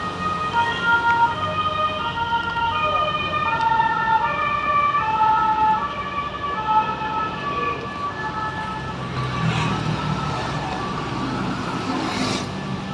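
Music: a high tune of short, stepped notes that fades about eight seconds in. Under it is a low traffic rumble that grows stronger near the end.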